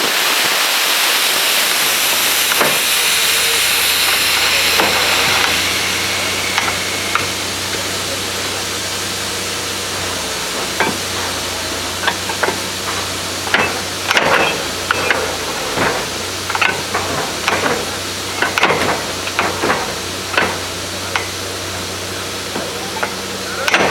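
A loud, steady hiss for about the first five seconds. Then a steady machine hum with irregular clicks and knocks, more frequent toward the end.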